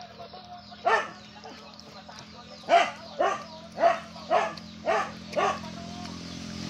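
A dog barking: one bark about a second in, then a run of six short barks about half a second apart.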